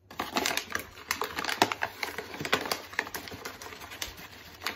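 A measuring cup scooping flour out of a paper flour bag and tipping it into a mixing bowl: a quick, irregular run of clicks, taps and paper crinkles.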